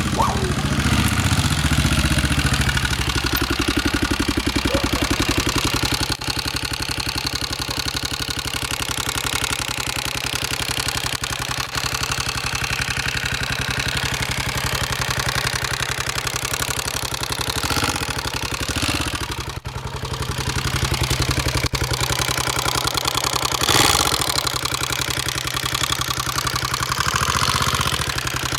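Honda XR650R's single-cylinder four-stroke engine idling steadily, with a brief swell in sound about 18 seconds in and again around 24 seconds; the bike is being run because it is making unwanted noises.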